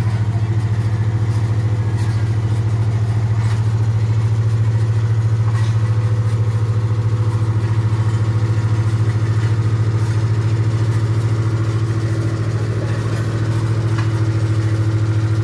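Bomag double-drum road roller's diesel engine running steadily at an even, constant pitch.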